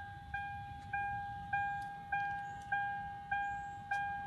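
Car key-in-ignition reminder chime of a 2000 Lexus RX300, a single electronic ding repeating about every 0.6 s, each ding fading before the next. It sounds because the key is sitting in the ignition with the door open.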